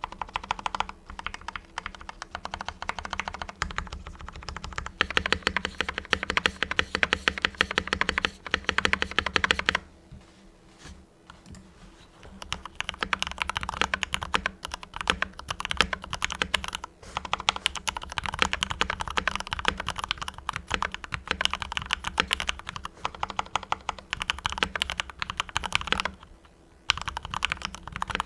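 Mars Pro mechanical keyboard with fully lubed Cherry MX Red linear switches being typed on in fast, dense runs of keystrokes. There is a pause of about two seconds roughly ten seconds in, and a brief break near the end.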